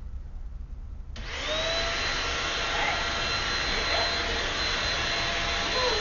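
Stick vacuum cleaner switched on about a second in, its motor spinning up to a steady high whine and running on.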